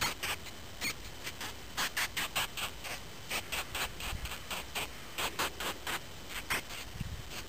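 A shrew squeaking over and over in short, high, sharp squeaks, about three a second in irregular runs: distress calls from a shrew under attack by a snake.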